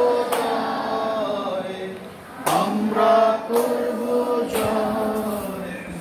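A group of children singing a song together in unison, with long held notes and new phrases starting every second or two.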